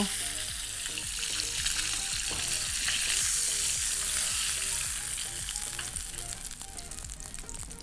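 Salmon fillets sizzling and crackling in hot oil in a frying pan, a steady hiss dotted with small spits and pops that eases off a little near the end.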